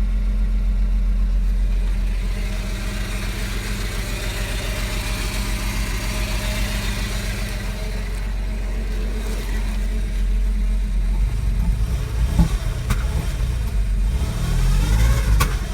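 Porsche Boxster 986 flat-six engine idling. It runs steadily at first, then goes uneven with irregular low thumps in the last few seconds. The owner describes this as a knocking noise and bad idling just after starting, after the car had sat for most of a year.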